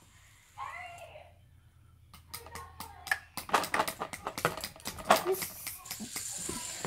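Plastic fidget spinners clicking and clattering as they are handled: a dense run of sharp clicks that starts about two seconds in and goes on for several seconds. A short voiced sound comes about half a second in.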